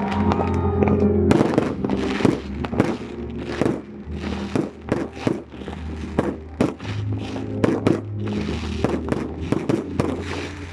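Fireworks display: a rapid series of shells bursting, with bangs and crackling one after another, over music with long held low notes.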